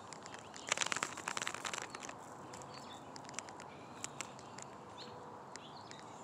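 Outdoor ambience with a burst of crackling rustle lasting about a second, starting just under a second in, then faint scattered bird chirps and small clicks.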